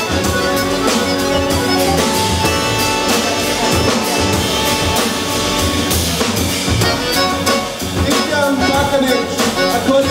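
Live band of violin, accordion, double bass and drum kit playing an instrumental klezmer-style tune, with a steady drum beat under the melody.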